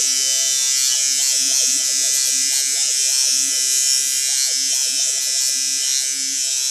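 Electric shaver running with a steady, high buzz.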